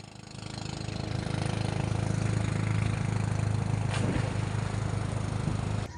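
A small engine running steadily, growing louder over the first second and holding an even hum until it drops away near the end, with a single brief click about four seconds in.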